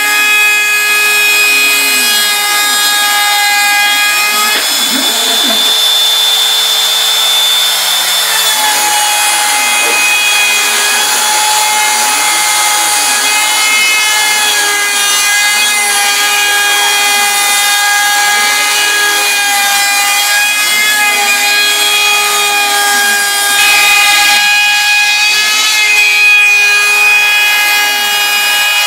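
Bosch Colt trim router spinning at high speed on a CNC Mogul machine, its 1/8-inch two-flute bit making a profile cut through bamboo board. A steady high whine runs over the cutting noise, with a lower tone rising and falling roughly once a second as the machine moves along the cut.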